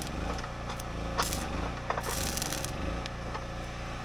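Arc welder crackling in short bursts as the rebar footing cage is tack-welded, with a few sharp metal clicks.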